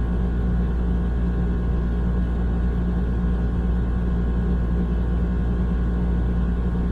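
Panasonic floor-standing air conditioner running with a steady, even hum: a deep low drone with a constant mid-low tone over it.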